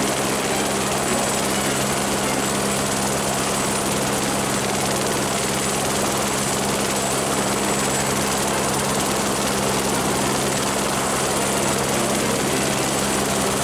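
Helicopter running steadily in flight: an even rushing drone with a low steady hum underneath.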